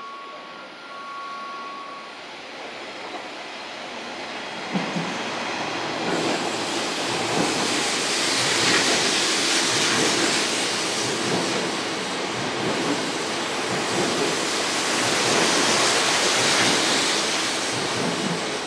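Odakyu 50000 series Romancecar VSE train passing at speed. A repeating electronic tone sounds for the first two seconds. About five seconds in there is a sudden bump, then the steady rush and rumble of wheels on rail, which grows loud and stays loud to the end.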